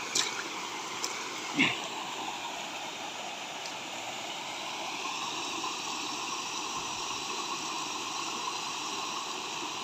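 Small waterfall pouring over rock into a pool, a steady rush of water that grows a little louder about halfway through. Two brief sharp sounds stand out in the first two seconds.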